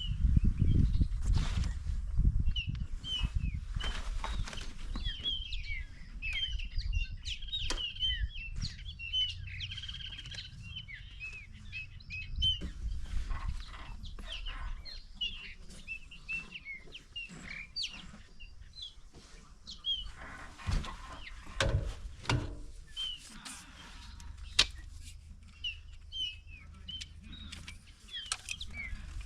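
Wild birds chirping and calling, many short quick chirps one after another, over a low rumble that is strongest at the start, with a few knocks and thuds in the second half.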